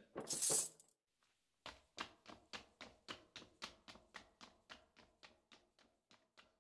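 A brief rush of noise, then, after a pause, quick even footsteps on a hard floor, about four a second, hurrying away and fading out.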